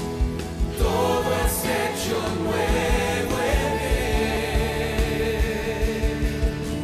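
Live gospel worship music: a man singing into a microphone over a band with a steady beat, his voice coming in about a second in.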